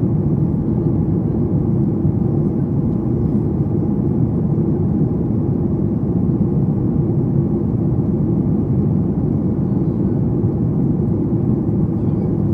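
Steady cabin noise inside a Boeing 737 MAX 8 in descent: an even low rumble of airflow and its CFM LEAP-1B engines.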